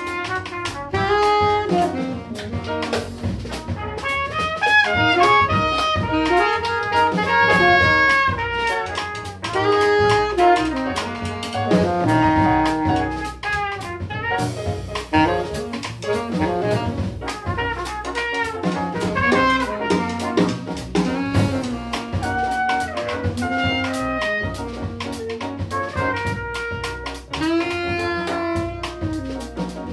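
Small jazz combo playing: trumpet and alto saxophone play together over piano, upright bass and drum kit.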